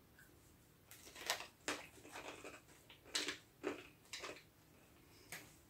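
A handful of short, sharp crunches and crackles, irregularly spaced, as savoury dough-coated peanuts are bitten and chewed.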